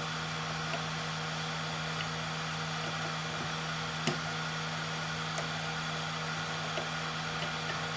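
A steady electric hum and whir, with a few faint light clicks from an Allen key turning the screws that fasten the extruder's motor mount.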